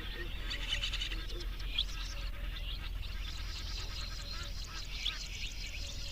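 A chorus of birds chirping and chattering, with a sharper call standing out twice, over a steady low rumble.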